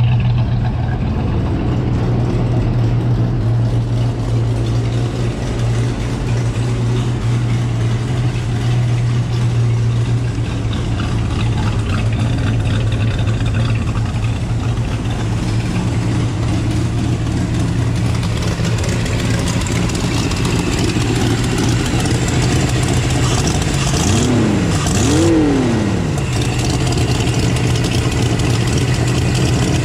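El Camino's engine running on its newly installed Holley EFI, idling steadily and running a lot better after a change to the EFI setup. It is blipped up and back down twice in quick succession near the end.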